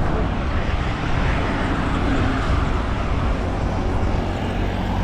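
Road traffic: vehicle engines and tyre and road noise, swelling as a vehicle passes about one to three seconds in.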